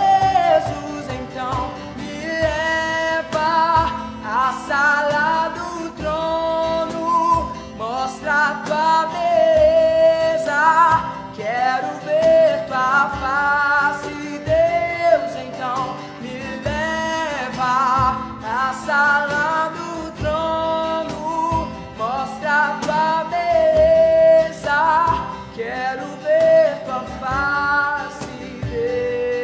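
Acoustic worship song played live: a male vocalist singing a flowing melody over acoustic guitar, with a cajón keeping the beat.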